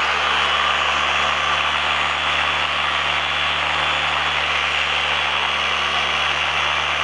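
Dual-action polisher running steadily with a foam cutting pad and compound on car clear coat: an even, loud rushing hiss over a constant low motor hum. This is the cutting/compounding stage that takes out wet-sanding scratches.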